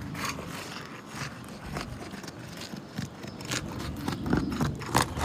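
Irregular scrapes, clicks and knocks of a shingle-removal tool being worked under roof shingles to loosen them.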